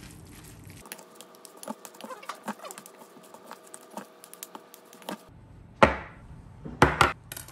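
Wooden spoons mixing bibimbap rice in a stainless steel bowl: many small clicks and scrapes of the wood against the steel. A few louder knocks follow near the end.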